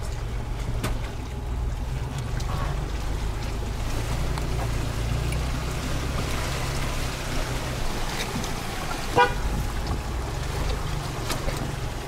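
2021 Ford Bronco's 2.7-litre twin-turbo EcoBoost V6 running at low crawling revs, heard from inside the cabin, over the wash of the tyres working through water and stones in a creek crossing. About nine seconds in, a brief, sharp high-pitched blip stands out as the loudest sound.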